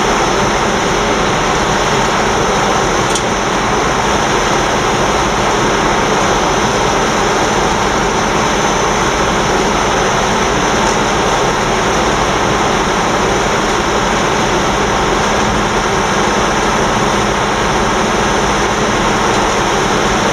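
Diesel shunting locomotive idling, a steady, even engine noise that does not change.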